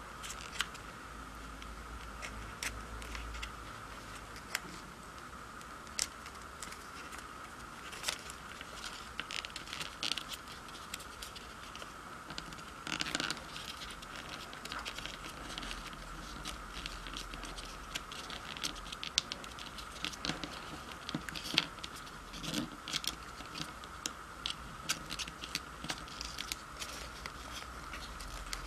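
Origami paper being folded and creased by hand: irregular crinkles and sharp ticks of the paper under the fingers. A steady faint whine sits underneath throughout.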